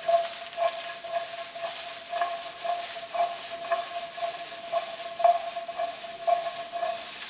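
Diced aubergine sizzling in olive oil in a frying pan while the pan is tossed, with a rhythmic accent about twice a second from each jerk of the pan.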